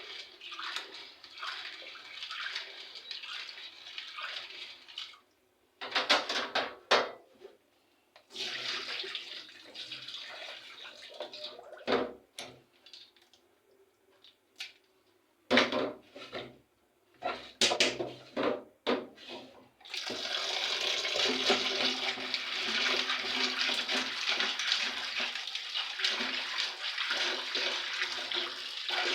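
Water sloshing and splashing as muthokoi (dehulled maize kernels) is washed by hand in a basin, with short pauses and a few sharp splashes through the middle. From about two-thirds of the way through, a steady rush of water.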